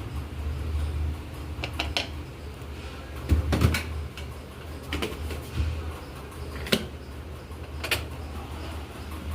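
LG dishwasher being handled: scattered clicks and knocks, with a cluster of louder clatters about three and a half seconds in, over a steady low hum.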